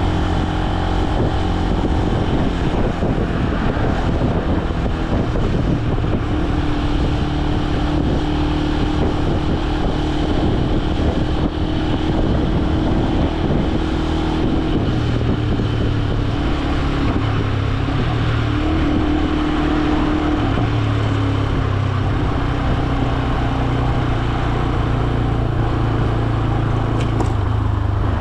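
Benelli BN125 single-cylinder 125 cc four-stroke motorcycle engine running under way at cruising speed. Its note holds steady and shifts in pitch a few times as the revs change.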